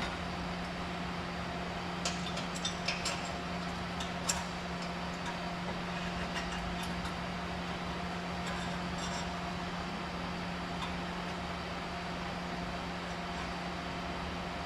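A few light metallic clinks and taps of exhaust parts being handled, bunched a couple of seconds in with fainter ones later, over a steady low workshop hum.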